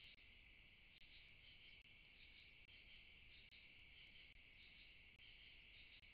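Faint, steady chorus of night-calling insects: a continuous high shrill that carries on without a break.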